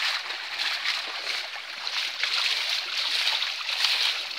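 Many fish thrashing at the surface inside a hauled-in drag net, making a dense, continuous splashing of churned water without a break.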